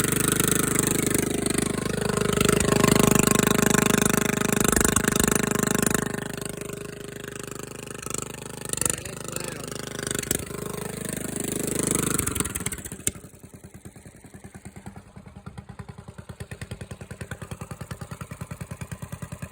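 Engine fitted with a larger-diameter exhaust pipe running at full throttle, loud, for about six seconds. It then eases back unevenly and, about two-thirds of the way through, drops suddenly to idle with an even, pulsing exhaust beat.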